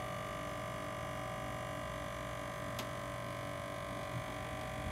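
Steady electrical hum made of several held tones over quiet room tone. There is a faint tick about three seconds in and a soft low knock near the end.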